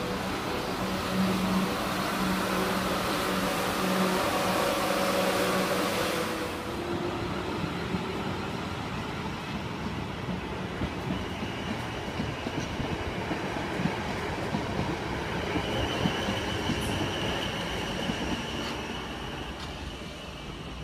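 A South West Trains Desiro electric multiple unit running with a steady electric hum and whine, which cuts off abruptly about six seconds in. Then comes the rumble and wheel noise of trains rolling along the track, with a faint high steady tone and a few sharp clicks.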